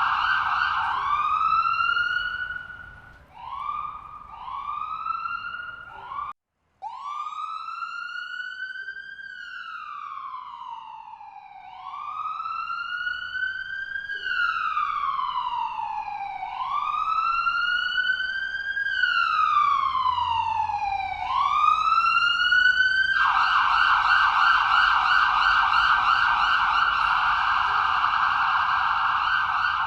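Ambulance electronic siren changing through its tones. First come short rising whoops, then it cuts out for a moment about six seconds in. A slow wail rising and falling every two to three seconds follows, and a fast yelp starts near the end.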